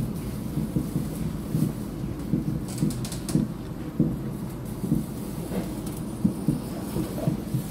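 SMRT C751B metro car running along the track, heard from inside the car: a steady low rumble with irregular thuds and knocks from wheels and running gear, and a few light clicks about three seconds in.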